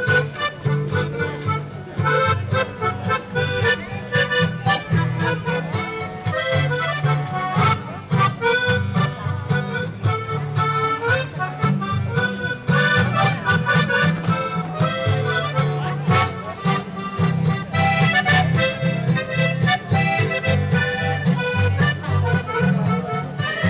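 Lively Polish folk dance music played over a stage sound system, with a steady pulsing beat.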